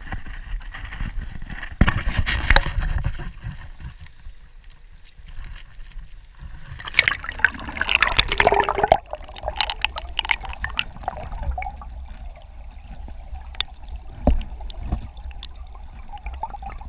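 Water sloshing and gurgling around a camera held underwater in a river, heard muffled through its waterproof housing over a steady low rumble. Louder splashy bursts come about two seconds in and again from about seven to nine seconds, with a few sharp knocks in between.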